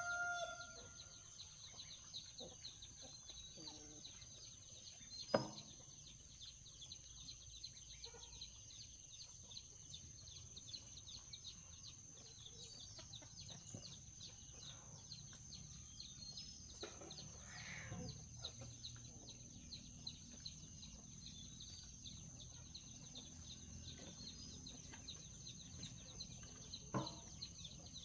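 Quiet farmyard background: a rooster's crow trailing off in the first moment, then a steady high-pitched hum with fast ticking. There are two sharp knocks, one about five seconds in and one near the end.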